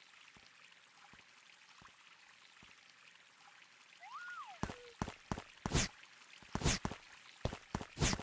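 Edited sound effects. A few faint ticks sound over a light hiss, then about halfway a short whistle-like tone rises, holds and drops. It is followed by an irregular run of sharp knocks, the loudest coming in a few heavy strikes.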